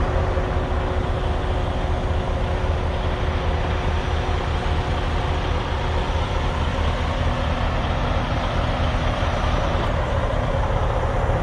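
Semi truck's diesel engine running steadily, a deep even drone with no breaks.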